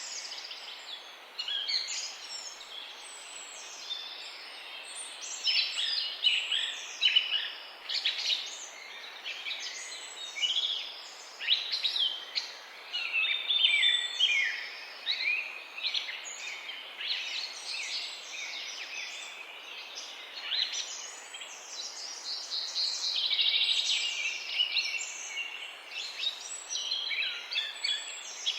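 Several small birds chirping and trilling in a morning chorus: overlapping quick, high chirps and short twittering phrases, busiest in the middle and again near the end, over a steady faint outdoor hiss.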